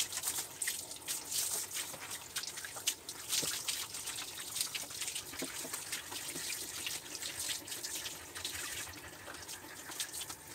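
Hand-held shower head spraying water over a dog's wet coat, rinsing out shampoo, with water splashing and dripping onto a tiled shower floor in many small ticks.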